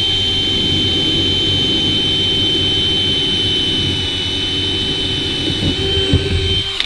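Power drill running at a steady speed with a constant high whine, boring a screw hole through a fibreglass boat hull from the inside. It cuts off suddenly at the end.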